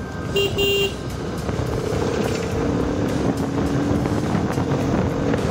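Bajaj Pulsar RS200's single-cylinder engine running at steady road speed, with wind and road noise, and two short horn beeps about half a second in.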